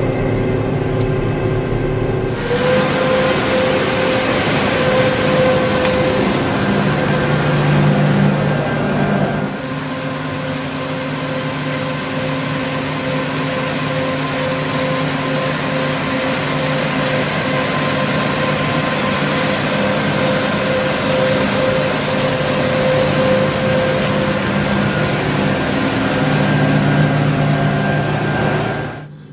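John Deere 9996 cotton picker running as it picks cotton: a steady engine and machinery drone with a held whine and a high hiss. The sound jumps louder about two seconds in, eases a little near ten seconds, and falls away just before the end.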